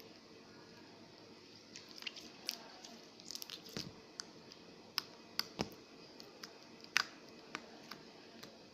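Slime being squeezed and kneaded by hand, squishing with irregular small sharp pops and clicks: a flurry about three to four seconds in and single sharp pops near five and seven seconds.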